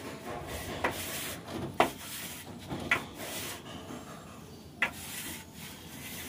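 Long straight-edge bar scraped across wet cement plaster on a ceiling to level it: a steady rasping rub, with four sharp clicks along the way.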